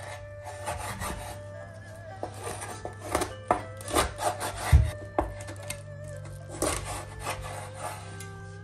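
Chef's knife cutting raw chicken wings apart on a bamboo cutting board: a run of rasping strokes through skin and joints, with a heavy thud of the blade hitting the board a little before five seconds in. Soft background music with steady held notes underneath.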